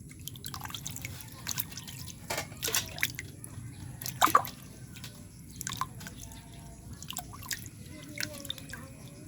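Water splashing and dripping as oregano leaves are washed by hand, in irregular small splashes with a louder one about four seconds in.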